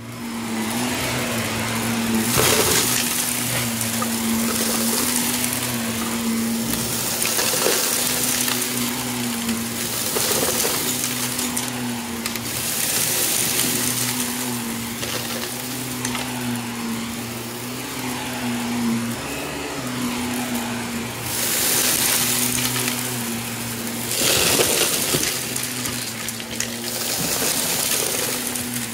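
Shark upright vacuum cleaner switching on and running with a steady motor hum. Repeated surges of crackling rattle come as small pieces of debris are sucked up off the carpet.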